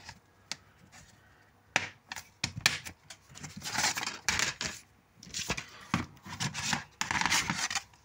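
Handling of a plastic DVD case and disc: a few sharp clicks and snaps in the first couple of seconds, then repeated scraping and rubbing of plastic.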